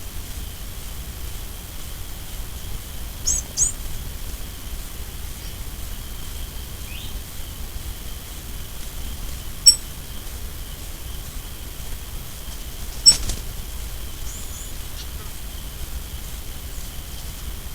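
Forest ambience: a steady high insect drone, with brief high-pitched bird chirps a few times and two sharp clicks a few seconds apart.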